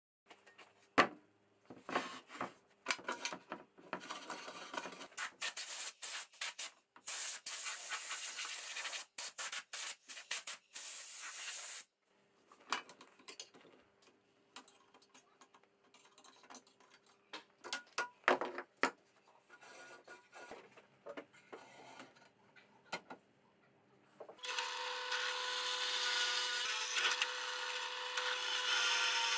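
Workshop tool sounds: scattered clicks, knocks and bursts of hissy scraping as the carriage of a manual tile cutter is handled on its steel rails. About 24 seconds in, a drill press starts and runs steadily with a constant hum, its bit cutting into a flat steel bar.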